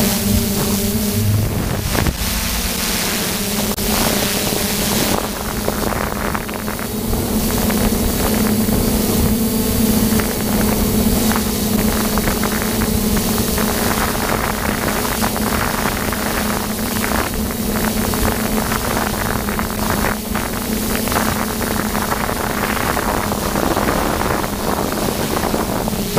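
DJI F550 hexacopter's six electric motors and propellers droning steadily in flight, heard from its onboard GoPro, with wind rushing over the microphone.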